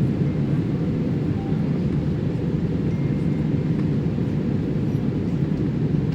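Steady airliner cabin noise in flight: a deep, even rumble of engines and rushing air.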